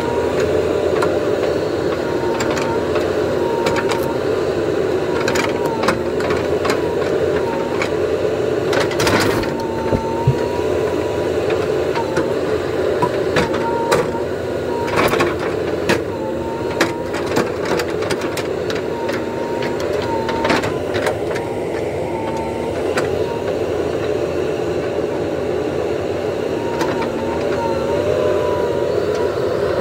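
JCB 3DX Super backhoe loader's diesel engine running steadily under hydraulic load as the backhoe arm works, its pitch dipping briefly now and then. Scattered sharp knocks of the bucket against the logs.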